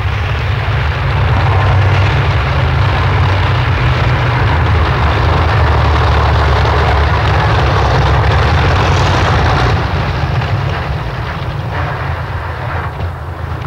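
BMP-1 tracked infantry fighting vehicle driving over snow: a loud, steady rumble of engine and tracks, easing off a little in the last few seconds.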